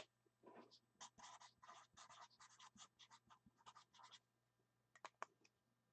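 Near silence with faint, quick scratching strokes for about four seconds, then a few soft clicks near the end.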